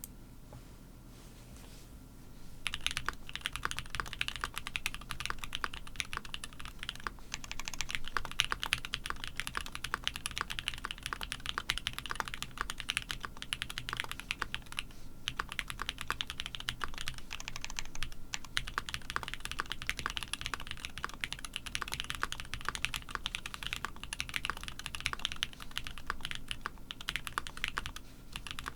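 Continuous, fast typing on a mechanical keyboard, the GOK 7v with Kailh-stem switches on an aluminium plate with plate foam, starting about two and a half seconds in.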